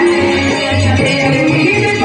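Live folk stage-band music, loud and unbroken: a held, stepping melody over a steady drum beat.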